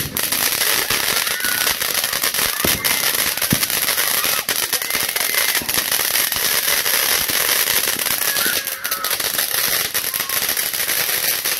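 Small consumer ground fountain firework spraying sparks: a steady hiss with rapid crackling throughout.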